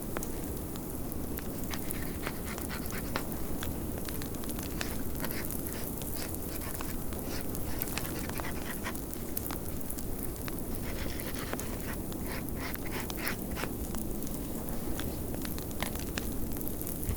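Fireplace crackling, with sharp irregular pops over a steady low rush of snowstorm wind.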